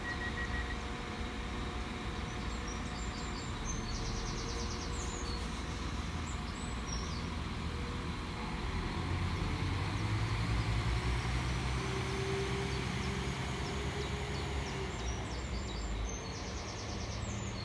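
Northern Class 195 diesel multiple unit pulling away from the platform, its underfloor diesel engines rumbling louder about halfway through as it accelerates away. Birds chirp in short trills now and then.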